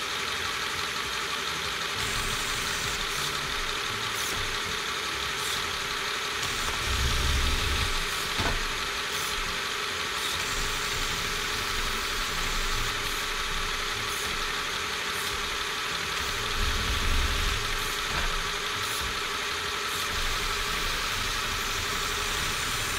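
Small electric air compressor for a Lego pneumatic system running steadily, a constant hum with hiss, as the automated gantry crane works. A low rumble swells twice, with a few faint clicks.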